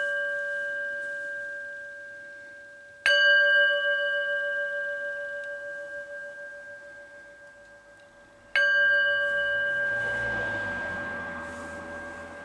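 Small brass singing bowl struck with a felt-padded mallet: the ring of one strike fading, then two more strikes about three and eight and a half seconds in. Each strike is a clear ring of several steady tones that slowly dies away, the lowest one wavering slightly.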